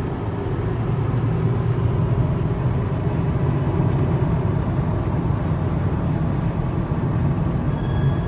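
Volvo S60R driving, with steady road and engine noise heard from inside the cabin, and a faint, brief high-pitched brake squeal near the end. The brakes squeal and vibrate once hot, which the owner puts down to the rotors warping from heat.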